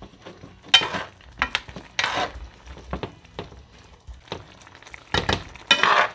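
A metal slotted spoon stirring and scraping around a nonstick frying pan with irregular clinks and scrapes, the loudest about a second in, around two seconds and near the end. Underneath, a pan of vegetables in coconut-milk sauce is simmering with a light sizzle.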